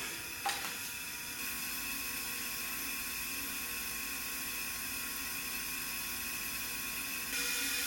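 Compressed air hissing steadily from a leak-down test on cylinder 4A of a Jaguar V12, escaping out through the exhaust on the other side. Air coming out of the exhaust is the sign of a leaking exhaust valve, and the cylinder is not holding pressure. There is a short click about half a second in, and the hiss grows a little louder near the end.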